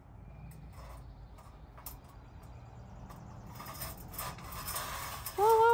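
Faint, scattered light clicks and taps as a black metal trellis is worked down onto its rebar support. Near the end, a loud held note with overtones suddenly begins.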